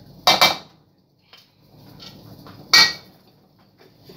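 A metal spoon clanking against a large metal cooking pot while scooping cooked rice: two sharp, ringing clanks, about a third of a second in and near three seconds in, with soft scraping between.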